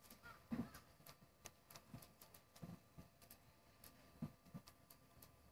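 Near silence, with faint, irregular ticks and a few soft low knocks, the clearest about half a second in.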